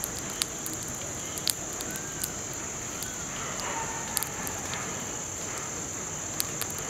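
Night-time ambience: a steady high-pitched insect drone over a low noise bed, with scattered sharp crackles and ticks and two faint short chirps about two and three seconds in.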